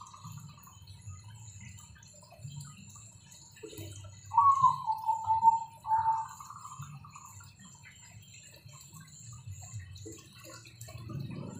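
Small spillway waterfall pouring steadily into a koi pond. About four seconds in, one loud call lasting about two seconds stands out, falling slightly in pitch with a short break.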